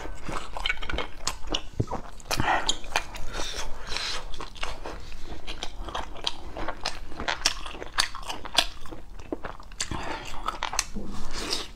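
Close-up mouth sounds of someone eating steamed abalone topped with minced garlic: biting and chewing, with an irregular run of sharp smacks and clicks.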